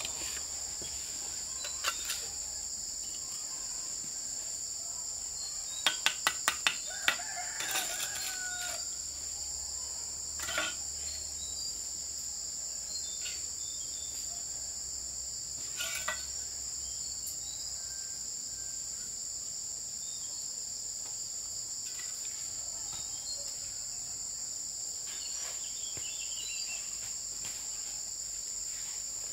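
Steady high drone of insects, with a quick run of about five sharp taps around six seconds in and a few single taps later: a trowel knocking bricks into their mortar bed. A rooster crows once, about eight seconds in.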